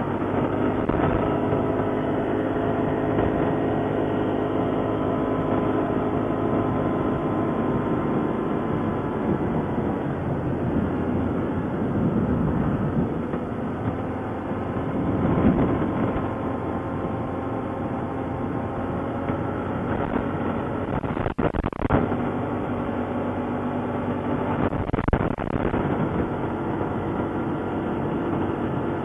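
ATV engine running steadily while riding, with the rumble and rattle of the ride over the ground.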